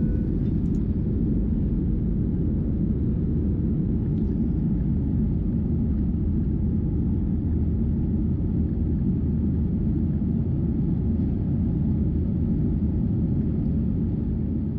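Steady low rumble of a jet airliner's engines and rushing air, heard inside the cabin as the plane climbs just after takeoff.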